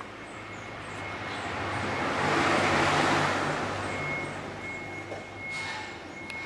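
A car passing by: a road and engine noise that swells to a peak about halfway through and then fades away, over a steady low hum.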